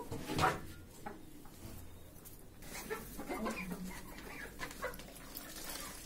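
A small flock of Egyptian baladi (village) chickens clucking quietly in scattered short calls.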